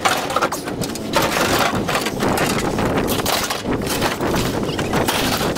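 Scrap metal clattering and banging as it is unloaded and thrown onto a scrap pile: a dense, continuous run of knocks and rattles.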